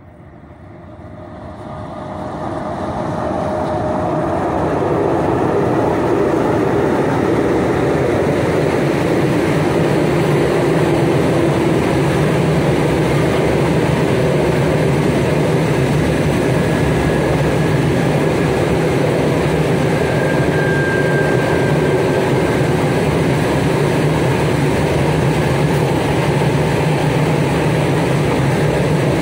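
A freight train hauled by 2ES5K 'Ermak' electric locomotives passing. The approaching locomotives grow steadily louder over the first four or five seconds, then the open gondola wagons roll by with a steady rumble of wheels on rail.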